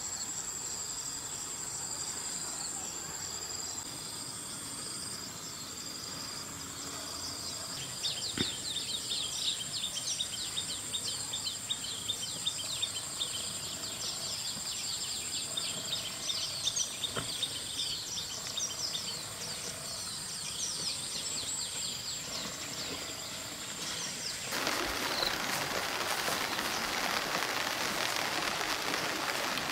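Outdoor ambience of a steady high insect drone with many small birds chirping quickly from about 8 seconds in. About 25 seconds in it changes suddenly to the steady hiss of rain.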